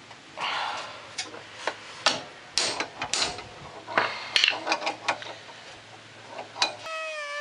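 Irregular metal clanks, scrapes and sharp knocks of a bearing puller and hand tools being fitted and worked on a stuck bearing race in a golf cart's rear axle tube. Near the end the sound cuts to a wavering tune of music.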